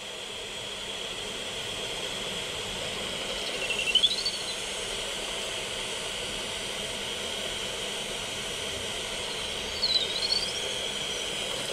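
Steady hiss, with two short chirps that rise and fall in pitch: one about four seconds in, the other near the end.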